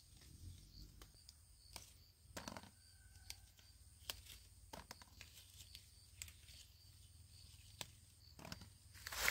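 Faint, sparse rustles and sharp clicks of small green fruit being picked and handled in a woven bamboo basket over dry straw and leaves, with a low steady rumble underneath.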